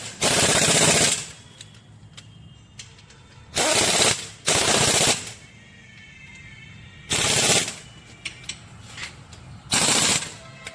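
Pneumatic impact wrench rattling in five short bursts of about a second each, with quieter gaps between them.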